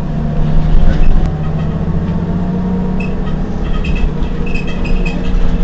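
Heuliez GX 127 city bus engine running at a steady note, with a few light clicks and rattles over it in the second half.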